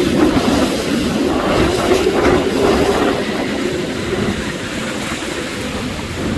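Hurricane-force wind gusts blowing hard, a loud rushing noise with a low howling note that eases a little after about three seconds.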